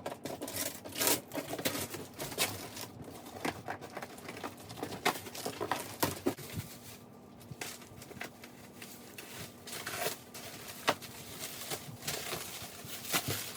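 Packaging being unwrapped and torn open by hand: irregular crinkling and rustling with scattered sharp crackles and light knocks.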